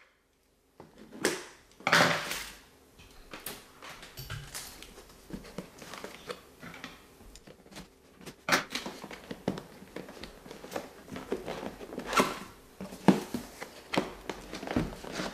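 A cardboard shipping box being handled and opened by hand on a stone countertop: an irregular run of scrapes, knocks and crinkles of cardboard and packing tape.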